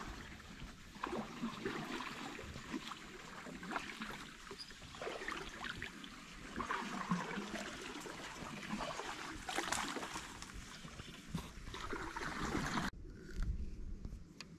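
Irregular water splashing and sloshing close by, which cuts off suddenly near the end.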